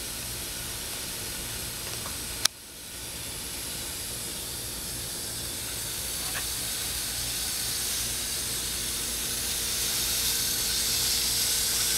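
Garden hose pistol-grip nozzle spraying water, a steady hiss. There is a sharp click about two and a half seconds in, after which the hiss comes back quieter and slowly grows louder.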